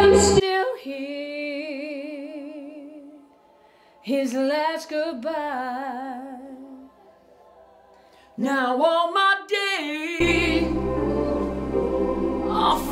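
A woman's voice singing a slow ballad alone: the backing music cuts out just after the start, leaving three unaccompanied phrases of long held notes with vibrato and short quiet gaps between them, and the full backing music comes back in about ten seconds in.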